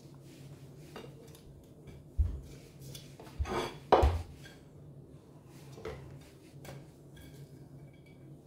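Light kitchen clatter from a plastic blender cup being handled and set down on a wooden chopping board as herbs and garlic are dropped into it. There are a few scattered knocks, and the loudest comes about four seconds in.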